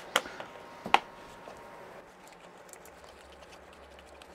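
Wire potato masher working cold milk into mashed potatoes in a stainless steel pot: two sharp clinks of metal against the pot in the first second, then soft squishing and faint ticks.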